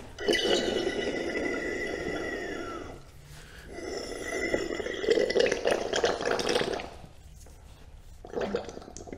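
Hydraulic oil and trapped air gurgling and hissing through the log splitter's valve and hoses as the cylinder rod is pulled with the control valve held open. It comes in two surges of about three seconds each, with a whistling note that falls in pitch during the first.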